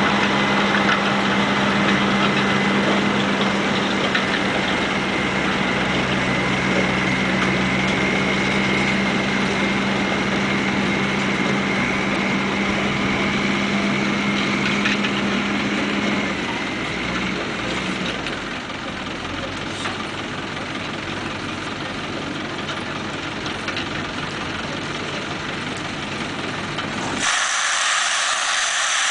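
Tractor engine running steadily while it drives a tractor-mounted round-bale wrapper for haylage, with a faint high whine above the engine note. About sixteen seconds in the engine note drops and quietens, and near the end the sound switches abruptly to a steady hiss.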